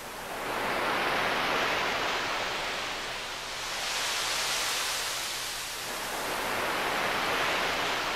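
Sea waves washing in, a rushing noise that swells and eases three times.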